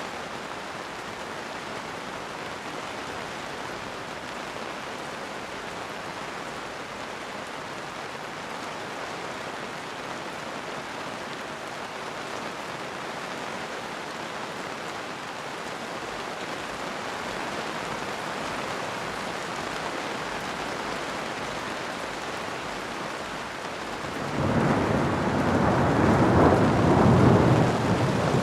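Steady rain falling, swelling slightly in the second half, then a loud low rumble of thunder rolling in near the end.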